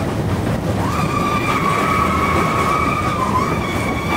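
Mine-train roller coaster rumbling along its track. From about a second in, a steady high-pitched squeal holds for a couple of seconds.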